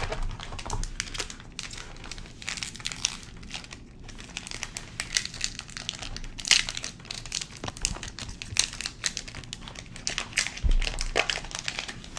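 Crinkling foil wrapper of a trading-card booster pack being handled and torn open, with cards shuffling, in irregular crackly rustles.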